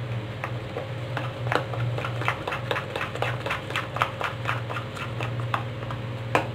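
A metal spoon beating besan (gram flour) batter in a stainless steel bowl, clicking against the bowl's sides about four times a second.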